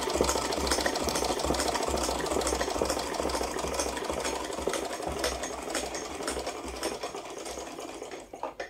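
USHA straight-stitch sewing machine running, its needle stitching rapidly through fabric in a fast, even clatter that slows and dies away near the end.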